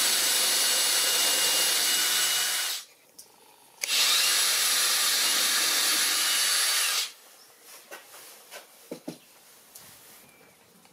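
Cordless drill running at full speed, boring into a wooden shelf board in two runs of about three seconds each with a short pause between. After that come only a few light knocks and handling noises.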